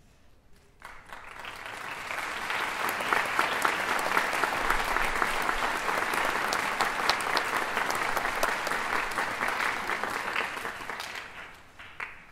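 Audience applauding: a round of clapping that swells over about a second, holds steady, then dies away near the end with a few last claps.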